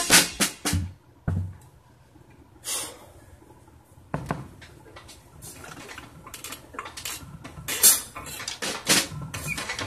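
The last strokes of a drum fill on a drum kit die away in the first second, then sparse light knocks and clatter follow. There is a short hissing cymbal wash about three seconds in, and the taps get busier toward the end.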